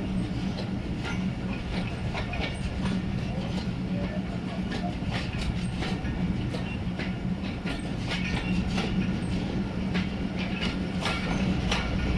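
Passenger train running along the track: a steady low rumble with frequent irregular clicks and rattles of wheels and rolling stock over the rails.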